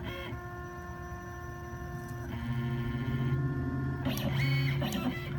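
Stepper motors of an OX CNC machine whining as they drive a marker pen across the board. There is a steady hum of several tones throughout. The pitch pattern shifts a little over two seconds in, and a louder run of quickly changing tones comes about four seconds in as the machine makes short moves.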